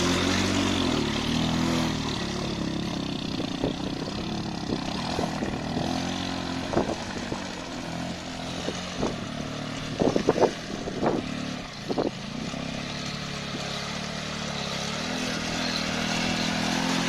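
Off-road motorcycle engine running, louder at first and again near the end, fainter in between. Several sharp knocks and clatters come in the middle.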